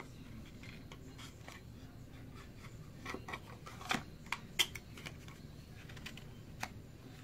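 Cosmetic packaging being handled at close range: light rustling with scattered small clicks, a cluster of sharper clicks around the middle.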